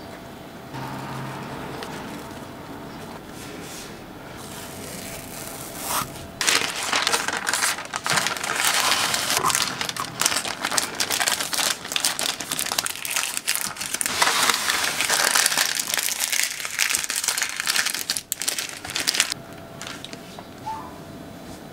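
Baking parchment rustling and crinkling as it is rolled around a cake and wrapped tight. Softer rustling at first, then loud, busy crinkling from about six seconds in, easing off near the end.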